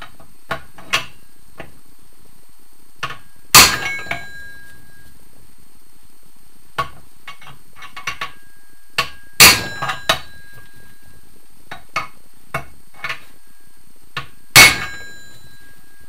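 Three sharp hammer blows on a steel tool held against a Scott two-stroke motorcycle crank, each ringing briefly, spaced about five to six seconds apart, with light metal taps and clinks between them as the tool is repositioned. The blows shock-load the crank to break the hard taper fit between crank half and flywheel.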